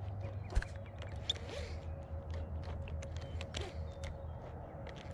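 Baitcasting reel being cranked to retrieve a lure: a faint steady whir with small ticks, and a sharp click about half a second in, over a steady low rumble.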